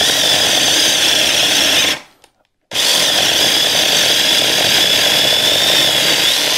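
Bei & Hong 6-inch 21-volt cordless mini chainsaw cutting into a hard, semi-seasoned log, its electric motor and chain running with a steady high whine. About two seconds in the saw winds down and stops for under a second, then starts again sharply; the user puts the stop down to some sort of load switch.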